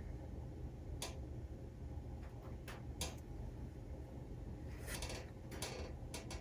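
Faint steady low hum with a handful of soft, scattered clicks.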